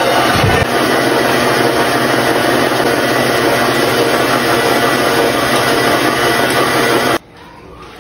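Electric stand mixer motor running steadily as its dough hook kneads sticky pizza dough, then switched off about seven seconds in.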